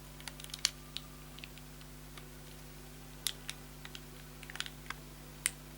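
Fingernails picking at sticky tape on a small plastic makeup case: scattered, irregular small clicks and ticks, with the tape stubborn to lift.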